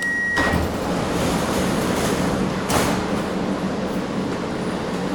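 Steady hum inside a Bucharest metro train car, with a short high beep at the very start and a sharp knock a little under three seconds in.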